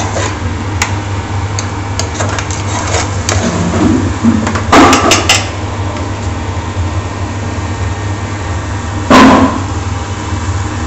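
A metal ladle clinking and knocking against a frying pan and scraping in a plastic tub, with louder clatters about five and nine seconds in, over a steady low hum of kitchen machinery.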